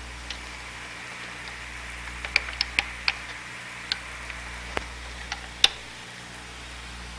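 Small sharp clicks and ticks of metal parts being handled at an oscilloscope front panel as knobs are fitted and turned on their shafts, irregular and bunched about two seconds in, with one louder click later, over steady hiss and low hum.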